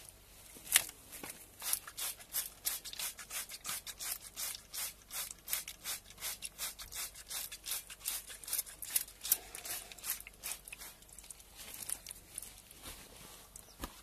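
Hand trigger spray bottle squirting chemical copper-plating solution onto a lacquered clay figure: a run of short hissing sprays, about two or three a second, the first one the loudest.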